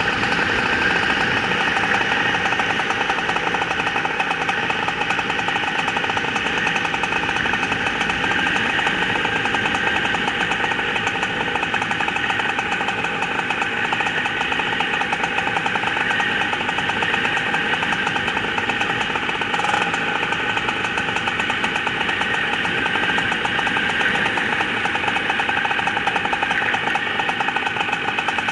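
Paramotor's small two-stroke engine running steadily at constant throttle, its pitch unchanging throughout.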